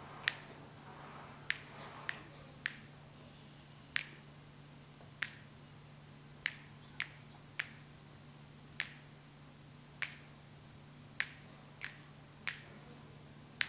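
Sharp, faint clicks or snaps in a slow, uneven rhythm, roughly one a second with a few extra ones in between, over a low steady hum.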